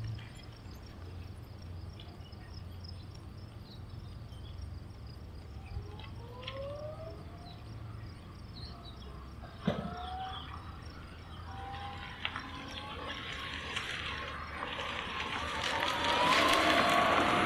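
Electric three-wheeler running, faint at first with a motor whine that glides up and down in pitch as it changes speed, then growing much louder with rising tyre noise and whine as it approaches over the last few seconds. A single sharp thump about ten seconds in.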